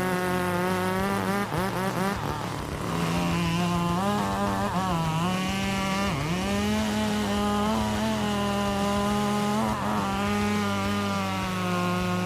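Chainsaw running at high speed with a steady buzzing pitch that dips briefly a few times, about two, five and six seconds in.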